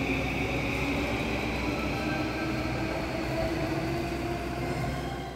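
Train running: a steady rumble with a faint, slowly rising motor whine over it.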